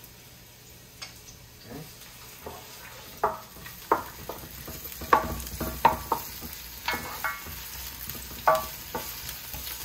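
Sliced red onions sizzling in hot oil in a square Copper Chef pan while a wooden spoon stirs them, knocking and scraping against the pan. The knocks come thick and fast from about three seconds in, over the steady sizzle.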